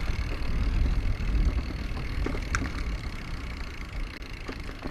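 Mountain bike ride on a dirt trail: low wind rumble on the microphone with scattered clicks and rattles from the bike, easing off about three seconds in. A short squeak comes midway.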